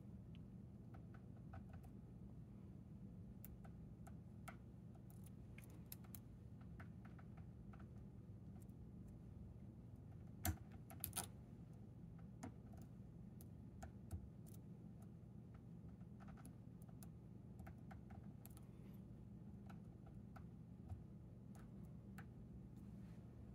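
Faint, scattered small clicks and ticks of a hook pick working the pins of a Chicago Lock Co tubular lock held under tension, with a few sharper clicks around the middle, over a low steady hum.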